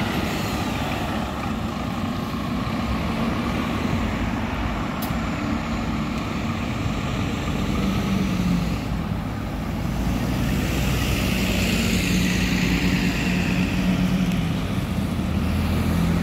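Diesel city buses running: the Scania OmniLink's five-cylinder engine pulling away and drawing off, then another city bus's diesel engine growing louder as it passes close in the last few seconds.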